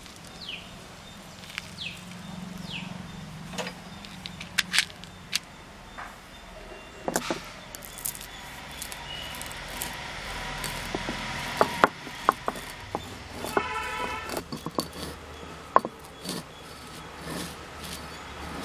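Black peppercorns cracking and crunching under a cylindrical stone roller on a flat stone grinding slab, with scattered sharp clicks and the scrape of stone on stone as the roller is pushed back and forth.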